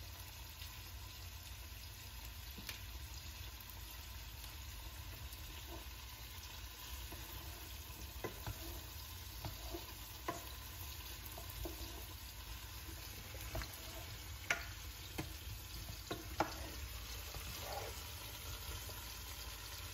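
Green beans sizzling steadily in a stainless steel sauté pan. Scattered light clicks and scrapes come from a spoon stirring them, mostly through the middle of the stretch.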